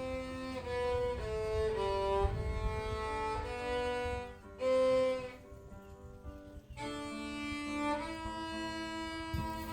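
Background music: a violin playing a slow melody of long held notes, breaking off for about a second and a half past the middle before resuming.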